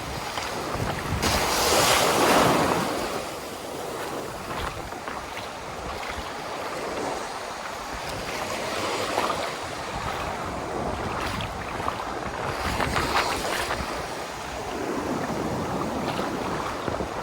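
Rough ocean surf: waves breaking and washing up the beach, with wind buffeting the microphone. The loudest wave breaks about two seconds in, and another swells up near thirteen seconds.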